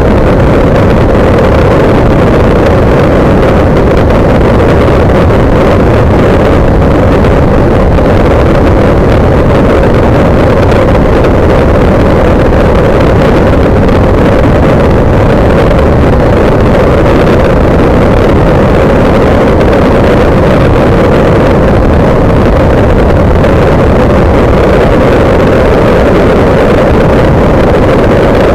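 Kolb Mark III ultralight's pusher engine and propeller running steadily in cruise, a loud constant drone mixed with wind rushing over the microphone.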